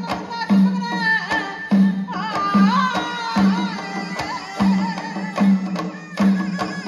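Kerala folk song, a maramutti pattu, sung by a lead singer over a group of barrel drums beating a driving rhythm, with sharp clicks between the drum strokes.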